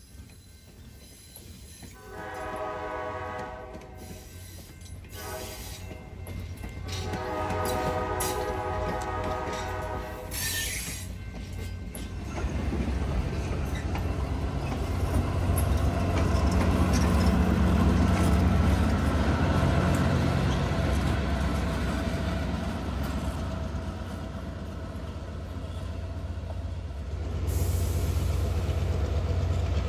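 Diesel locomotive air horn sounding two long blasts, the second longer, then a passenger train passing close by with a heavy low drone of engine and wheels that grows louder as the cars draw alongside.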